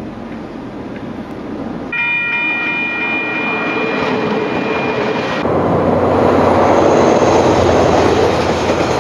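Trains passing close by, with the steady rumble and rush of rolling stock on the rails. About two seconds in, a steady pitched tone of several notes joins it and stops about three seconds later. The rush then grows louder as a train goes past.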